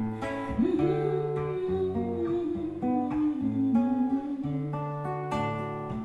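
Classical guitar played with plucked chords over a steady picked bass line, as the closing instrumental after the last sung verse. A wordless, wavering voice line sounds over it until about four seconds in.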